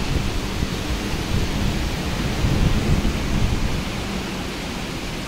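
Heavy typhoon rain with gusting wind, a steady hiss under a low rumble that swells from about a second in and eases off shortly before the end.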